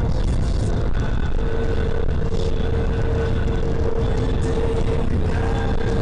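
Steady engine and road rumble of a moving car, with a faint steady whine through much of it and no impact.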